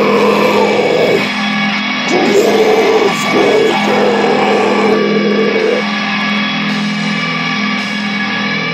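Heavy metal demo song with electric guitar holding sustained chords; a rougher, grittier layer drops out about a second in, comes back about two seconds in and stops near six seconds.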